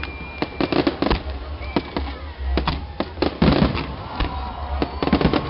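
Fireworks display: a rapid string of bangs and crackles from bursting shells, with some whistling tones among them.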